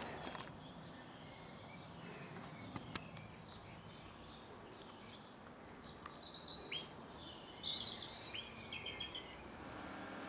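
Small birds chirping and twittering in quick, high, short calls and trills over a faint steady background hiss; a steady low hum comes in near the end.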